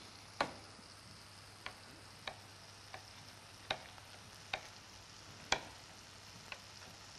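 Kitchen knife slicing a seeded bell pepper into small pieces on a cutting board: eight sharp knocks of the blade on the board, irregular, about one a second. A faint steady sizzle runs underneath from vegetables frying in the pan.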